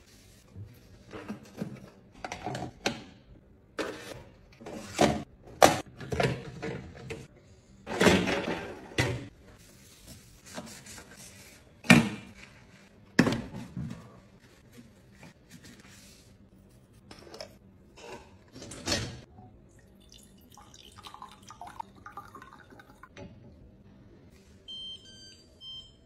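A cloth rubbing and wiping the stainless-steel inside of a dishwasher in irregular strokes, with occasional knocks against the tub and door. Near the end, a few short electronic beeps come from the dishwasher's control-panel buttons.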